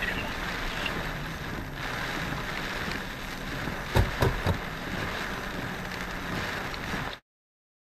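Steady rain and wind noise of a car driving through a tropical storm on a wet road, heard from inside the car's cabin. About four seconds in there are three quick knocks, and about seven seconds in the sound cuts out completely.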